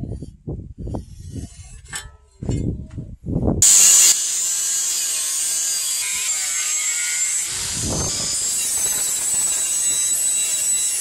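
Angle grinder with a thin cut-off disc cutting through rusty plough-disc steel: a steady, high-pitched cutting screech that starts abruptly about a third of the way in and is loudest as the cut begins. Before it come a few light scrapes and knocks.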